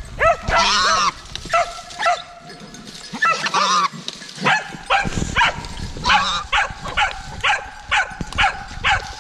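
Hunting dogs barking at a downed wild boar: a few drawn-out yelping calls at first, then from about halfway through a steady run of sharp barks about two a second.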